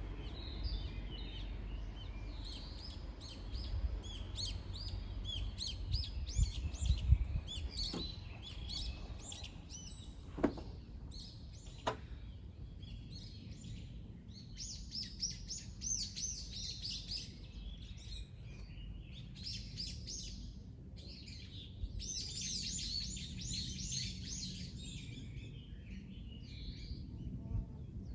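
Several small birds chirping and singing over each other, in dense quick flurries that thicken twice in the second half. Beneath them runs a steady low rumble, and a few sharp ticks come in the first half.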